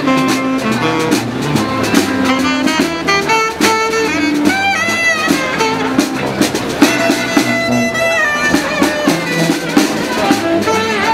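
Street band playing an upbeat funky tune: a horn melody with held and bending notes over a steady drum beat.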